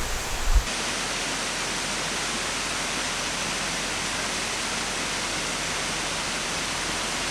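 Waterfall: water tumbling down and crashing into a pool, a steady, even rush. A few low thumps in the first second.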